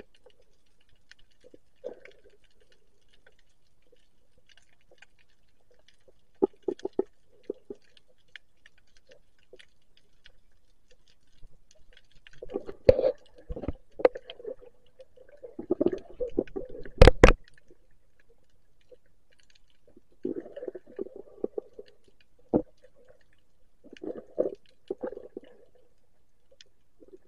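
Muffled underwater gurgling and knocking picked up by a camera held underwater: water moving around it and handling bumps, in irregular clusters, loudest in the middle with a few sharp clicks.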